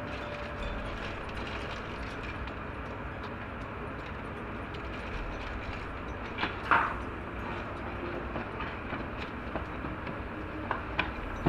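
Handling of phone packaging: plastic-wrapped earphones and a cardboard box insert rustling and knocking, with one louder rustle about two-thirds of the way through and a few sharp clicks near the end, over a steady background rumble.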